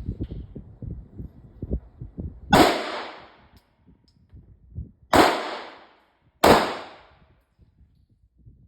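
Three 9mm pistol shots from a Glock 43X: the first about two and a half seconds in, then two more about a second and a half apart, each ringing out briefly after the crack.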